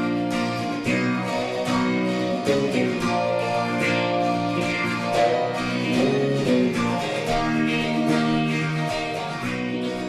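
Background music: guitar strumming chords in a steady rhythm.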